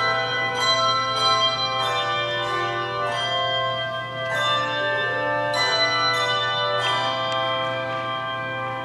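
Handbells played as music: several bells struck together in chords about every one to one and a half seconds, each ringing on and overlapping the next.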